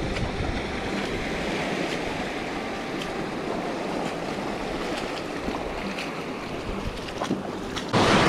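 Shallow surf washing over rocks, a steady rushing of water. A sudden louder rush of noise breaks in near the end.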